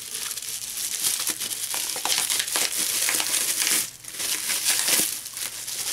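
Plastic bubble wrap crinkling and crackling as hands pull it off a small cardboard box, with a short pause about four seconds in.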